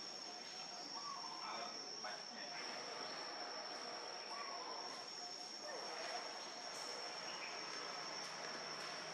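Insects trilling in one unbroken, high-pitched tone.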